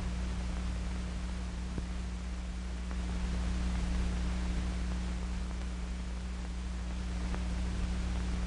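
Steady hiss and low hum of an old film soundtrack, with a few faint clicks; no work sound stands out.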